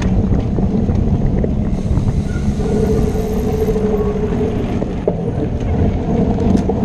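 Steady low rumble of mountain biking at race pace: knobby tyres rolling over grass and gravel, with wind buffeting the microphone.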